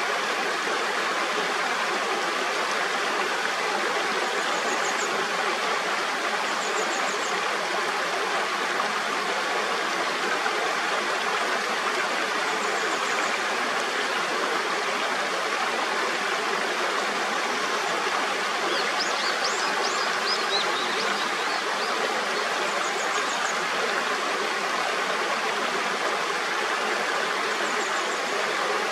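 Mountain stream rushing steadily. Faint short high chirps of small birds come through it several times, with a brief twittering phrase about two-thirds of the way in.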